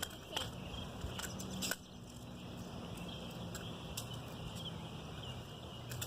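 Scattered light clicks and handling noise from hands tying a catfish hook onto fishing line, over a low steady hum.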